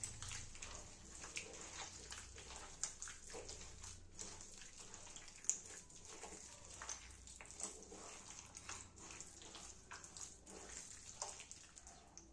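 Faint wet squelching of a hand squeezing and mixing chicken keema and rice flour with water into batter in a metal bowl: soft irregular squishes and clicks, with one sharper click about five and a half seconds in.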